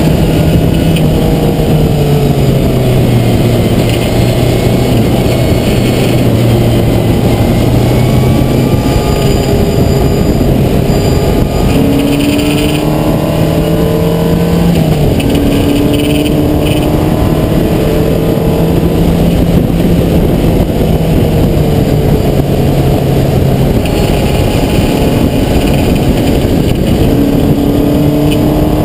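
Skip Barber open-wheel Formula race car's engine running hard, heard from an onboard camera on the open-cockpit car. Its pitch climbs slowly and drops back several times as it shifts and brakes for corners, over a steady rush of wind and road noise.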